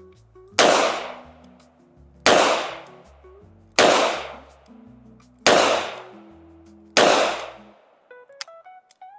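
Ruger SP101 snub-nosed revolver firing five shots of .38 Special in double action, a loud crack about every one and a half seconds, each with a ringing echo that dies away.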